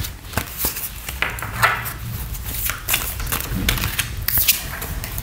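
A deck of tarot cards being handled and shuffled by hand: irregular clicks and taps with a few short swishes of cards sliding against each other.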